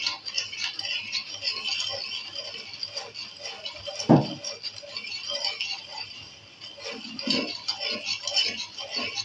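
A spoon stirring milk, custard and sugar in a pan on the stove, scraping and clinking against the pan, with one louder knock about four seconds in. A steady hiss runs underneath.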